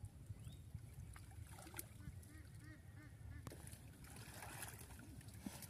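Quiet outdoor sound: water sloshing as a person wades and works with his hands in shallow muddy water, with a quick run of bird calls about two seconds in.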